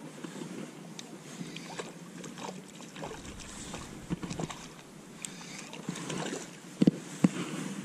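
A small hooked tailor splashing and thrashing at the water's surface as it is wound in on light spinning tackle, over wind on the microphone. Two sharp knocks come near the end.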